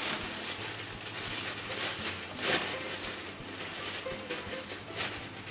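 Cat litter box being cleaned: continuous gritty rustling of litter with repeated short scrapes of the scoop.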